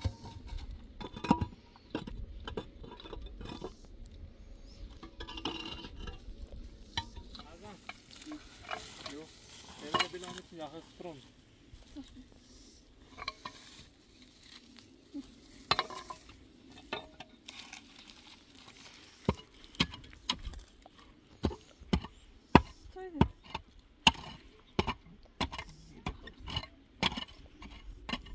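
A long run of irregular clicks and knocks from things being handled, coming thicker in the second half, with brief bits of voice now and then.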